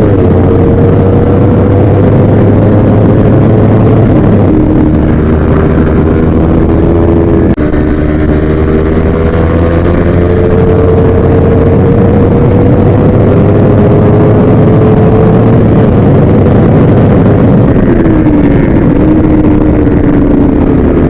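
Drag-racing motorcycle engine held at high revs during a tune-up, running loud and steady, its pitch drifting slowly up and down, with a brief dip about seven seconds in.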